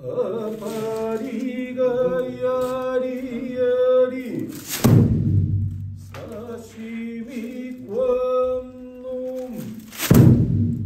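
Okinawan eisa song, a voice singing long held notes, with two heavy strikes of a large eisa drum about five seconds apart, near the middle and near the end.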